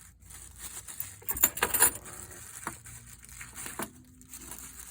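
Keys and small metal lock hardware clinking and rattling as they are handled, with a cluster of sharp clicks about one and a half to two seconds in.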